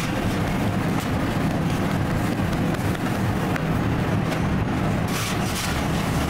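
Steady low hum of running bakery machinery fills the room. Soft sounds of hands pressing and patting taftoon dough on a floured steel table come in now and then.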